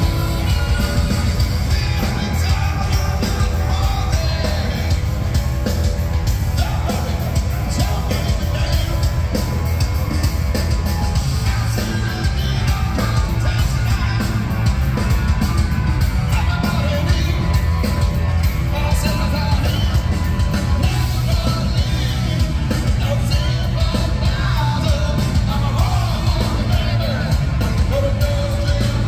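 Rock band playing loud and live: lead vocals over electric bass and drums, with a heavy, steady low end. Heard from the audience in a large hall.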